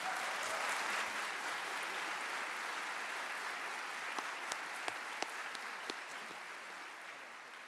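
Audience applauding, swelling to its loudest about a second in and then slowly dying away, with a few sharp clicks standing out near the middle.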